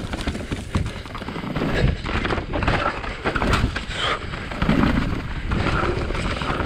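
Specialized Enduro full-suspension mountain bike descending a loamy dirt trail: knobby tyres rolling over the dirt under a steady low rumble, with frequent rattles and knocks from the chain and frame over the bumps.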